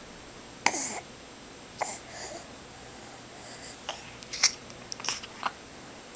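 An infant's mouth working on bare skin: a handful of brief wet smacks and clicks with quiet between them, the sharpest about a second in and another about halfway through.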